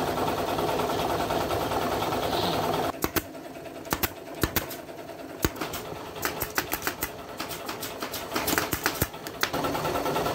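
Pneumatic staple gun firing staples into upholstery fabric on a wooden frame: a run of sharp snaps, irregularly spaced and some in quick pairs, lasting about six seconds. A steady machine hum fills the first few seconds and returns near the end.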